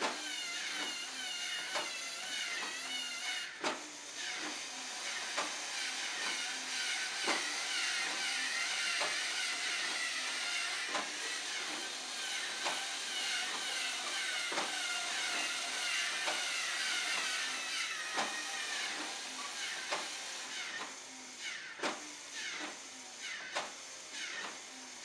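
LEGO Mindstorms motors and gears whirring with a wavering whine as the clock's seven-segment display turns its plastic segments over, with many sharp clicks as segments move and settle. The whine fades after about three quarters of the way through, leaving a run of scattered clicks near the end.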